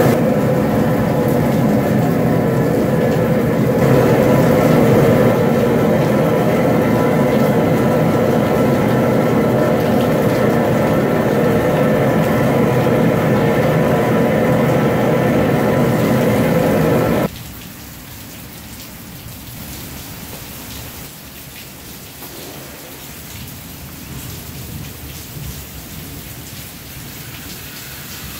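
A loud steady rushing noise with a low hum cuts off sharply about 17 seconds in. After it comes a quieter steady hiss of water spraying from a hose-fed Boil Boss cooling ring onto the outside of a crawfish boil pot. The spray cools the pot to stop the cooking so the crawfish can soak up the seasoning.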